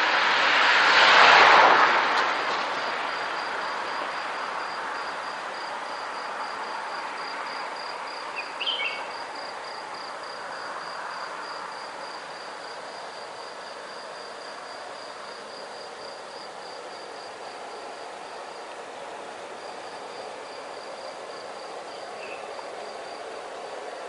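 A car drives past close by about a second in, its tyre and engine noise swelling and then fading over several seconds into a steady traffic hum. A high, evenly pulsing insect trill, like a cricket, runs on throughout, and two brief high chirps come about nine seconds in and near the end.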